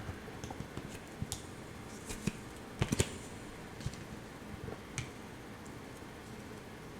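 A handful of light taps and clicks, a few bunched together about three seconds in, from tarot cards being handled and laid down on a table.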